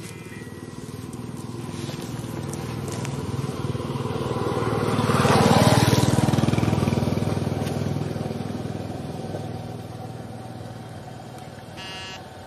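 A motor vehicle passing by: its engine grows louder to a peak about halfway through, then fades away. A brief high-pitched sound comes near the end.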